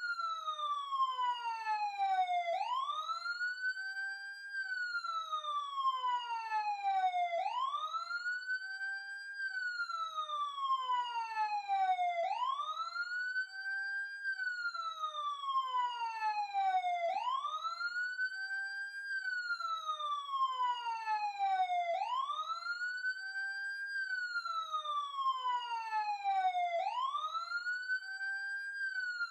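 Police siren sounding a wail: each cycle rises quickly in pitch, holds briefly at the top, then falls slowly, starting over about every five seconds.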